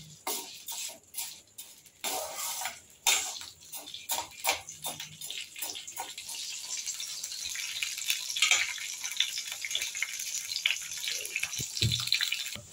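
Urad dal frying in hot oil in a stainless-steel kadai, stirred with a steel spoon that scrapes and clinks on the pan. The scraping strokes are densest in the first half; after that a steady sizzle takes over, with a few more clinks. The dal is being roasted until it turns reddish-golden.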